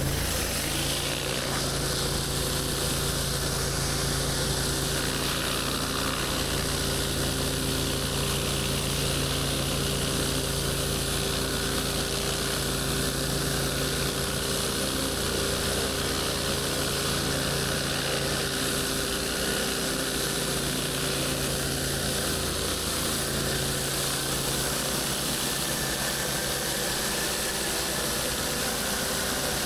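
Pressure washer running steadily: engine drone under a continuous hiss of high-pressure water spray, with a steady tone that rises into place just after the start.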